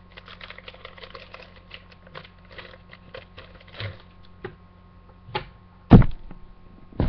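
Foil Pokémon booster pack wrapper crinkling and being torn open, a dense crackle, followed by the stack of cards knocked edge-down on the table three times, the loudest about six seconds in.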